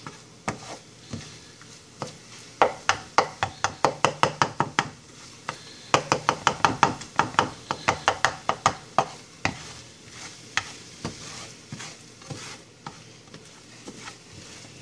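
Spatula tapping and scraping against a frying pan while stirring eggs, in quick runs of about four taps a second that thin out near the end, over a faint sizzle of the eggs cooking.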